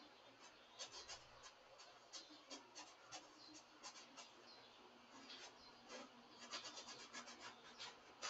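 Paintbrush bristles dabbing and stroking on stretched canvas: faint, quick scratchy strokes, several a second, coming thickest from about five seconds in.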